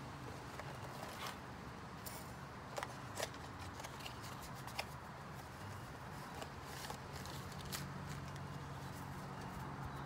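Faint scattered rustles and clicks of a small cardboard parts box being opened and a paper instruction sheet being handled, over a faint steady hum.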